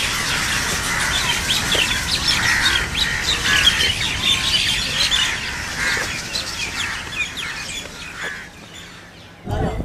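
Many birds chirping and calling together, a dense chorus of short calls that fades out toward the end.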